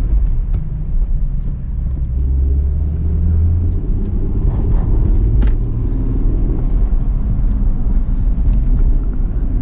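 Inside the cabin of an Acura TL on the move: the V6 engine's drone and road rumble, with a steadier, stronger engine hum from about two seconds in that eases near four seconds. A short click comes about five and a half seconds in.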